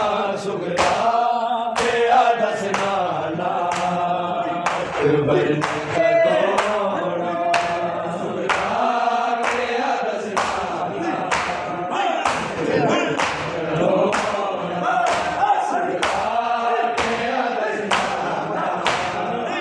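A crowd of men chanting a noha together in unison, with sharp slaps of matam (chest-beating) keeping a steady beat about once a second.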